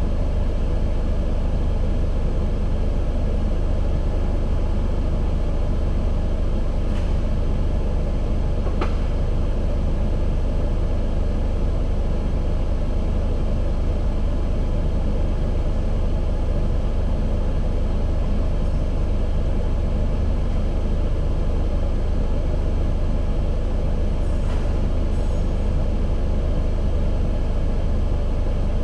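Car engine running steadily, a constant low rumble with no belt squeal to be heard, and a few faint ticks.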